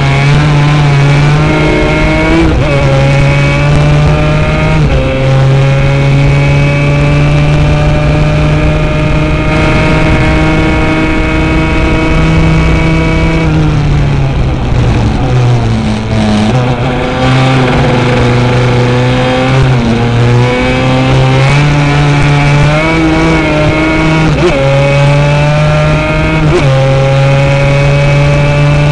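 Yamaha Banshee racing quad's two-stroke twin engine running hard, its pitch climbing through each gear and dropping at every shift. About halfway through it slows for a few seconds, then pulls up through the gears again.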